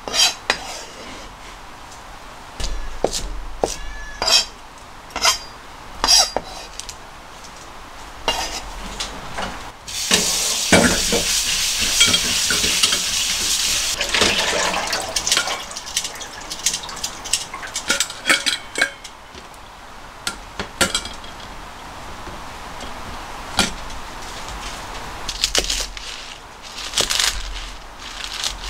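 Kitchen prep: a kitchen knife knocks on a plastic cutting board and utensils and a plastic colander are handled in scattered clicks and knocks. A tap runs in a steady rush for about four seconds in the middle, and near the end the knife chops through leafy greens.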